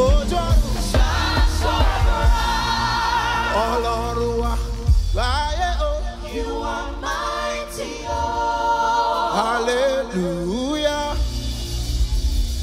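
Live gospel worship music: voices sing long, wavering notes over a band. The bass drops back for a few seconds about halfway through and returns near the end.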